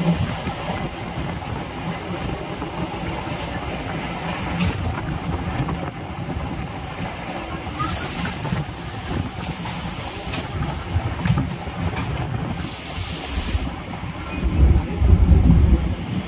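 Suburban electric multiple unit (EMU) train running and slowing into a station, with wheels and carriage rumbling steadily. Two spells of high hiss come about eight and twelve seconds in, and the low rumble grows heavier near the end.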